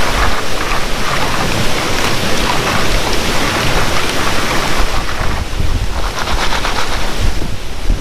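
Steady rush of fast-flowing creek water, with splashing as a plastic gold pan is worked by hand in the shallows.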